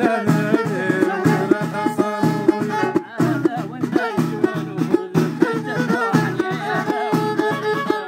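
Violin held upright on the knee and bowed, playing a melody over hand-beaten frame drums keeping a steady rhythm: Moroccan folk music.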